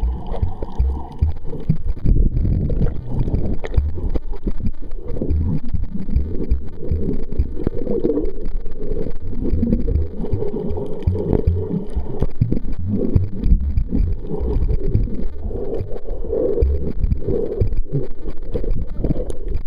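Muffled water noise and gurgling picked up by a camera held underwater: a steady low rumble with uneven low thumps and nothing clear above it.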